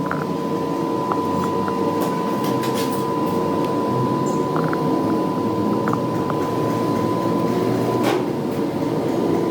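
A machine running steadily with a constant high whine, with a few light metallic clicks scattered through it.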